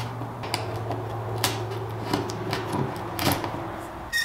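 Irregular clicks and taps of solar panel cables being handled and fed through a drilled hole in a wooden ceiling panel, over a steady low hum that stops about three seconds in.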